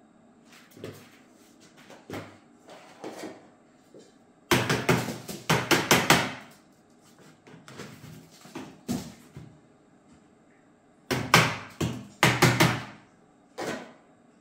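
Plastic slotted litter scoop scraping and shaking cat litter inside an automatic litter box, with scattered knocks. It comes in two bursts of rapid clicking rattle, one about a third of the way in and one near the end.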